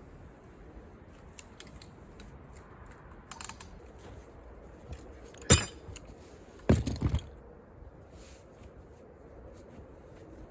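Metal rigging hardware clanking as it is handled and taken down: a few light clinks, then one sharp clank about halfway through and a quick rattle of several hits a second later.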